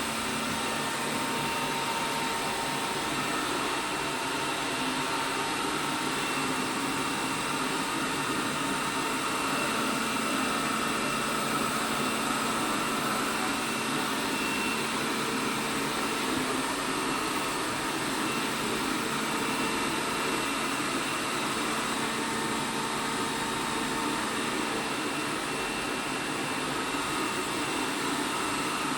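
ELARI SmartBot Lite SBT-002A robot vacuum running steadily, with an even whir of its suction fan and brushes and a few faint steady tones over it.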